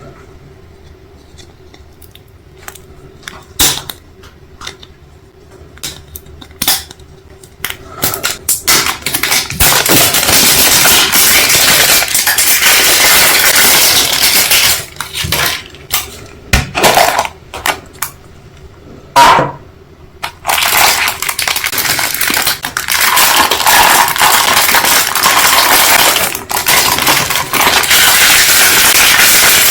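Crackling fire: scattered sharp pops at first, then from about nine seconds a loud, dense crackle with a few brief lulls.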